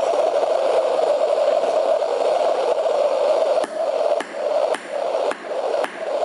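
Gas torch flame running with a steady hiss as it heats steel rods red-hot for forging. In the second half the hiss dips rhythmically, with faint ticks about twice a second.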